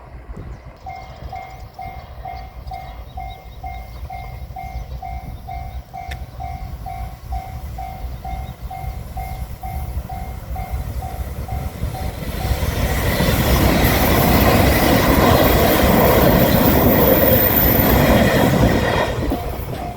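Japanese railway level-crossing warning bell clanging steadily, about two strikes a second. About twelve seconds in, a train passes over the crossing. Its rumble grows loud for about six seconds and drowns the bell, which is heard again as the train clears.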